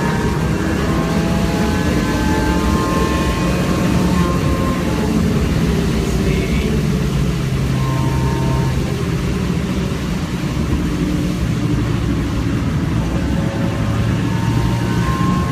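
Car engine running under steady throttle on a fast lap, heard inside the cabin, with road noise from the wet track. The engine note dips a little past the middle as the car slows slightly.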